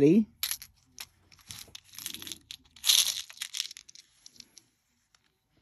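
Small beads tipped from one white plastic triangle bead sorting tray into another, clicking and rattling as they slide out. The run of light clicks and clatter is loudest about three seconds in, then thins to a few scattered ticks.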